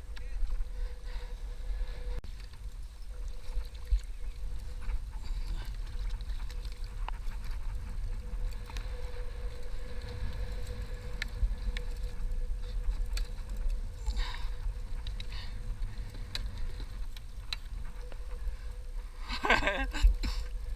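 A boat on the water makes a steady low rumble, with a faint steady hum and scattered light ticks. A louder, wavering sound lasts about a second near the end.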